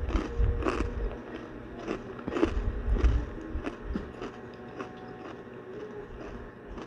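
Chicharon (crispy fried pork rinds) crunching as they are bitten and chewed close to the microphone: quick sharp crackles, thickest in the first three or four seconds, then fewer and softer.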